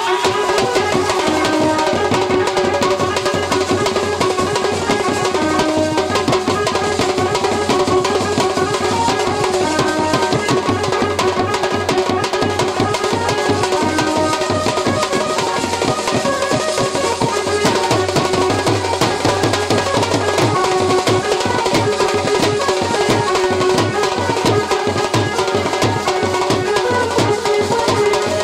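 Indian wedding brass band (band baja) playing: a steady drum beat under sustained horn notes.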